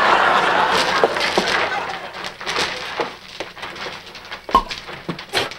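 Studio audience laughter dying away over the first couple of seconds, followed by a few light knocks and clinks, the loudest two near the end.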